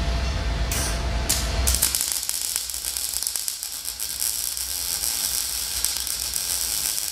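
Wire-feed (MIG-style) welder arc on steel rebar: two brief arc strikes, then a steady crackling, spitting arc for about five seconds that cuts off suddenly.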